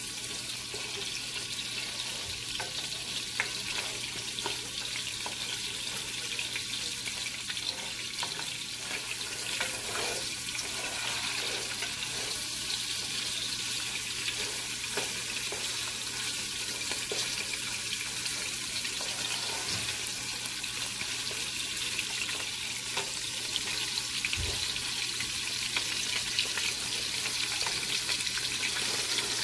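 Pre-boiled lamb chunks sizzling in hot oil in a non-stick pot as they brown, a steady high hiss with scattered small crackles. A plastic spatula stirs and turns the meat.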